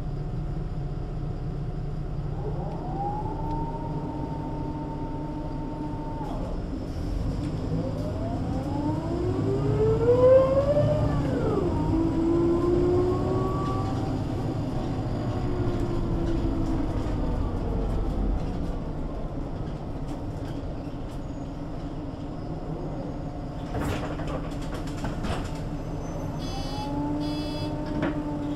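MAN NL 283 city bus driving, its diesel engine rumbling under a whine from the ZF automatic gearbox that rises in pitch as the bus gathers speed, swoops up and drops away about ten seconds in, then settles. Near the end there are a few clicks and a short quick ticking, and the whine rises again as the bus moves off.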